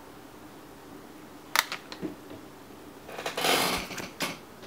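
A graphics card being handled and set down: a sharp click about a second and a half in, a few light ticks, then a short crinkling rustle of the anti-static bag and a knock as the card is laid on it near the end.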